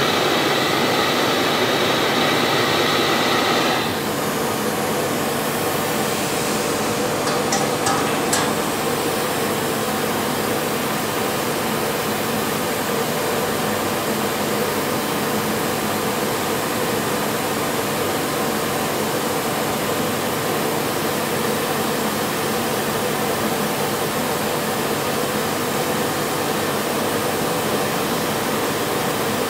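Gas soldering torch running with a steady rushing flame noise. It drops in level and loses some of its upper hiss about four seconds in, then carries on steadily, with a few faint clicks around eight seconds.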